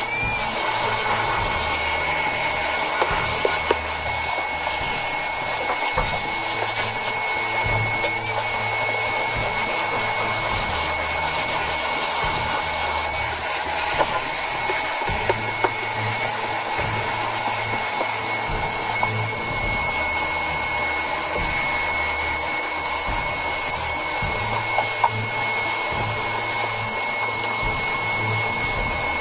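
Canister shop vacuum running steadily with a thin high whine over its rushing noise, with a few brief clicks along the way.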